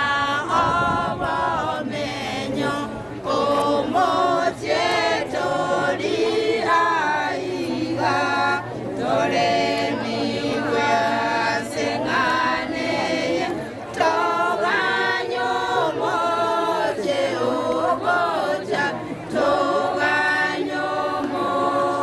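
Choir singing a hymn unaccompanied, phrase after phrase with short pauses between them.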